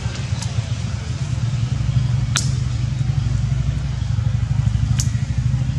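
Steady low mechanical hum, like an engine running. Three brief sharp high-pitched ticks sound over it, a couple of seconds apart.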